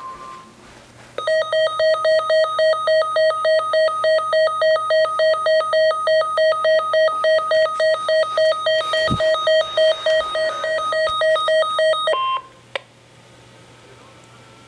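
Weather radio alert alarm beeping rapidly, a harsh buzzer-like tone pulsing about three to four times a second for about eleven seconds, signalling an incoming flash flood warning. It stops about twelve seconds in, followed by a brief steady higher tone.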